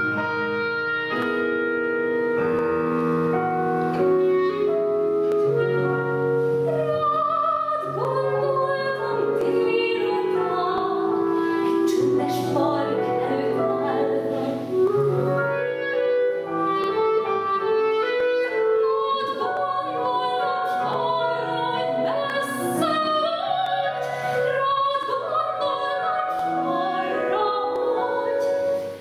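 Clarinet and piano play held notes, joined about eight seconds in by a classically trained female voice singing with vibrato over the accompaniment.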